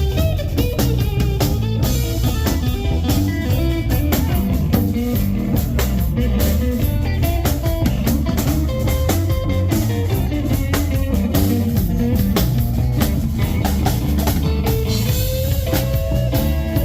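Live blues band playing an instrumental passage: guitar over a steady bass and drum-kit beat.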